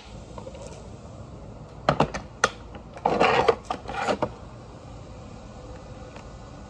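Hard plastic knocks and clacks from a Bissell upright vacuum being handled while switched off: a few sharp knocks about two seconds in, then a rattling scrape as the machine is tipped and turned on a concrete floor.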